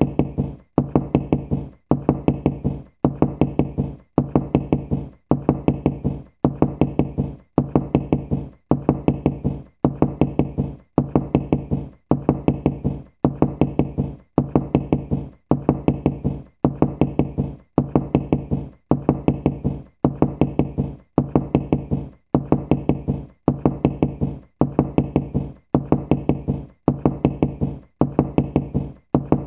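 Knocking in short bursts of several quick knocks, each burst repeating about once a second in a steady, unchanging pattern.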